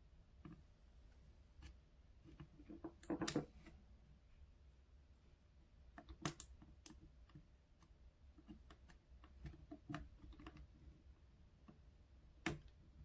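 Scattered light clicks and taps from small hand tools and a keyboard circuit board being handled, with a louder clatter about three seconds in and sharp taps around six seconds and near the end.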